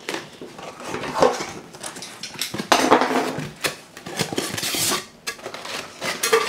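Cardboard shipping box being opened: flaps pulled back and a styrofoam liner lid handled, a run of scrapes, rustles and knocks.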